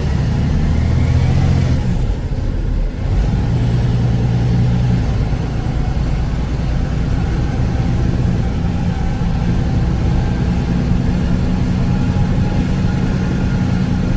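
Kenworth T360 concrete agitator truck's diesel engine pulling away from a standstill, heard from inside the cab. The engine note dips briefly about two to three seconds in, then runs on steadily.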